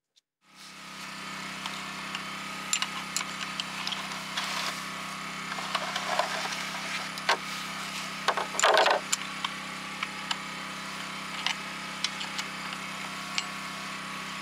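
Metal saw chain clicking and rattling as a new chain is fitted by hand onto the bar of a Husqvarna chainsaw, with a louder rattle near nine seconds in. A steady low hum runs underneath.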